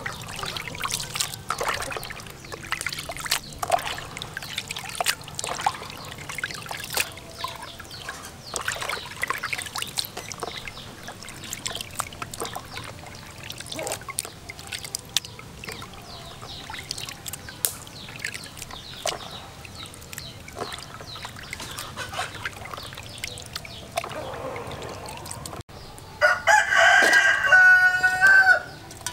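Frogs in a plastic colander being handled and tipped, with scattered clicks and rustles; near the end a rooster crows loudly for about three seconds.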